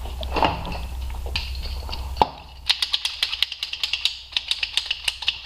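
Small metal parts and tools being handled in a car's engine bay: a low hum with a few taps stops with a sharp click about two seconds in, followed by rapid, irregular light clicks and clinks.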